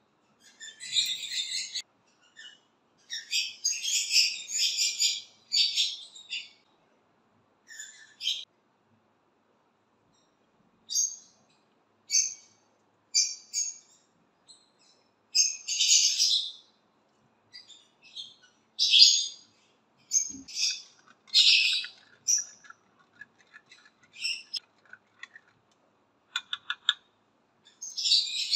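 Small birds chirping in short high-pitched bursts, scattered with silent gaps between them, and a quick run of ticks near the end.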